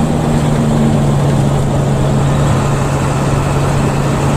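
Intercity bus engine running with road noise, heard from inside the cabin: a loud, steady low drone.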